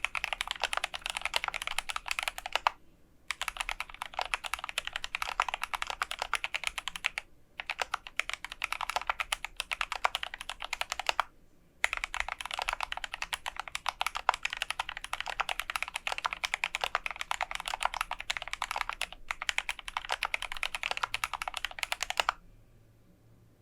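Fast, continuous typing on a GMMK Pro mechanical keyboard with lubed Gateron Ink Black v2 linear switches, a polycarbonate plate and PBT keycaps. It comes in long runs of rapid keystrokes with a few brief pauses, and stops about a second before the end.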